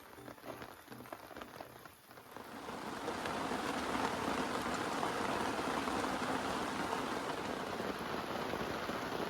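Background music fades out over the first two seconds, then steady rain comes in, an even, dense pattering that holds to the end.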